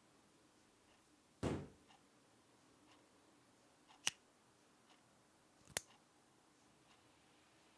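A short, dull thump about a second and a half in, then two sharp single clicks a little over a second and a half apart.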